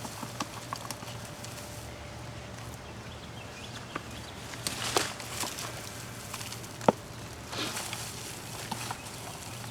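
Digging through the soil of a potato grow tub: rustling scrapes and scattered knocks, with a sharp knock about seven seconds in.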